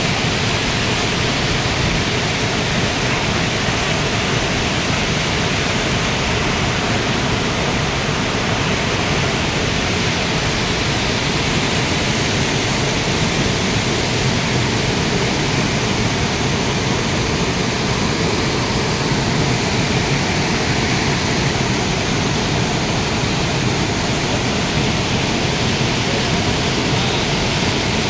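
River rapids and low cascades of white water rushing over rocks: a steady, even rush of water.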